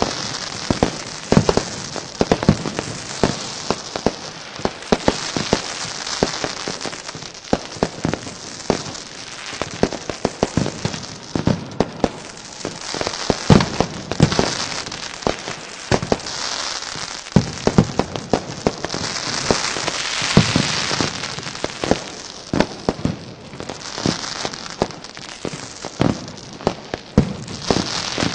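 Fireworks going off without pause: many sharp, irregular bangs and pops over a steady crackling hiss. The hiss swells for a couple of seconds about two-thirds of the way through.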